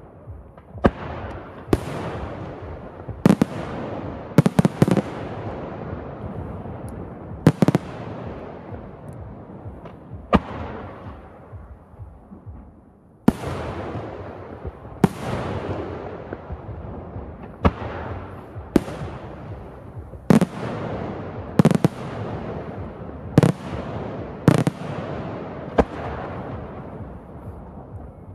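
Aerial firework shells bursting in a traditional display: about sixteen sharp bangs, one every second or two, some in quick pairs, each followed by a long fading rumble. There is a short lull a little before halfway.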